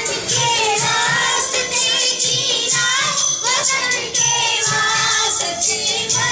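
A group of children singing a song together in unison, with a faint regular ticking beat in the background.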